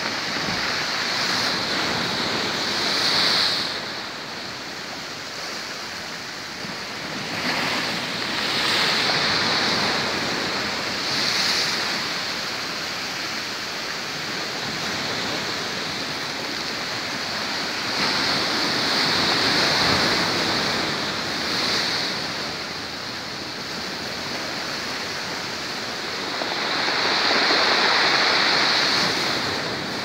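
Rough sea waves breaking and washing against a concrete pier, a steady rush that surges louder every few seconds, the biggest surge near the end.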